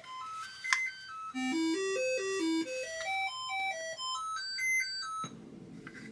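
Commodore 64 SID sound chip playing the diagnostic's test tones: a quick series of beeping notes climbing and falling in stepped runs. This shows the replacement 1983 SID is working. The notes stop about five seconds in, leaving a faint low buzz.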